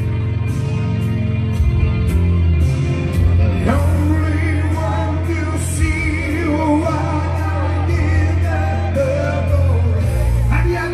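Loud amplified party music with a steady beat and heavy bass. About four seconds in, a man starts singing over it into a microphone.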